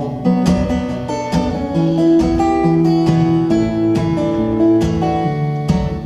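Acoustic guitar played live between sung verses: chords strummed and picked in a steady rhythm, with no voice.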